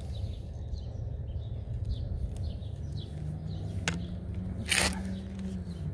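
Large flathead screwdriver prying at the old axle seal in a Nissan 300ZX differential housing, with a click just before four seconds in and a short, loud scraping rasp about five seconds in. A low hum rises in the second half and holds to the end.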